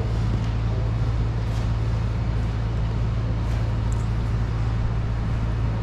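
Steady low hum under an even wash of background noise, unchanging throughout.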